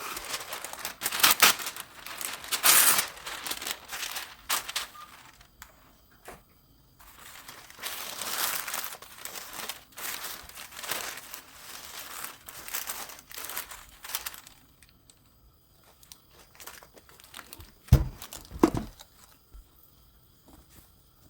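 Paper crinkling and rustling as it is handled, in loud bursts for about fourteen seconds, then two dull thumps near the end.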